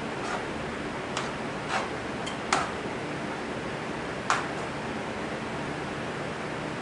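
Spatula clinking and scraping against a skillet on the stove, about six sharp taps over a steady hiss, the loudest about two and a half and four seconds in.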